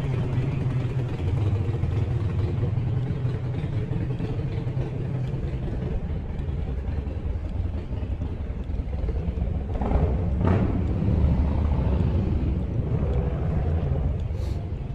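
City street traffic: a steady low rumble of vehicles, with one vehicle passing close about ten seconds in.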